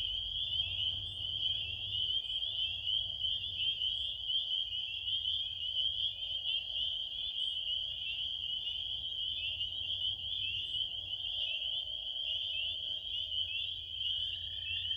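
A spring chorus of frogs calling together, making a dense, unbroken high trilling. A lower, steady trill joins in near the end, with a low rumble underneath.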